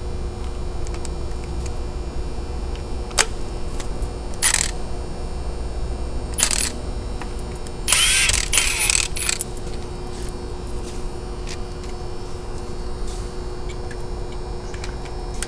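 Metal hand tools clinking and jangling, with a sharp click about three seconds in and then a few short bursts, the longest around eight to nine seconds in. A steady low hum runs underneath.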